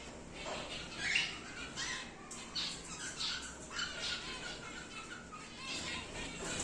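Cockatiels chirping and squawking in a string of short calls.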